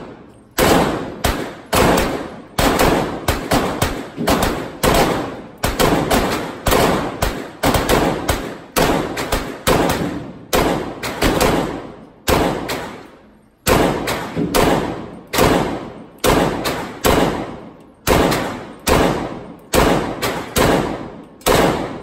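Noveske AR pistol in .300 Blackout firing a steady string of semi-automatic shots, about two a second, each ringing out in the indoor range, with a short pause about thirteen seconds in.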